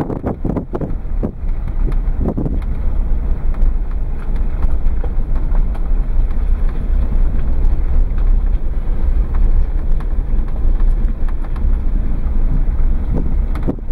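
Steady low rumble of a car driving, its road and wind noise heard from inside the vehicle, with a few knocks in the first couple of seconds.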